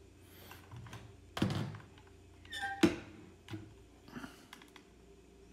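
A glass-topped digital kitchen scale being set down and handled on a wooden tabletop: a few knocks and thunks, the loudest nearly three seconds in.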